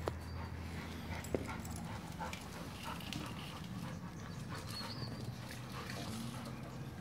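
A Labrador-Rottweiler cross and a Rottweiler puppy playing tug of war with a rope toy on paving stones: scuffling paws and clicking claws, with two sharper knocks in the first second and a half.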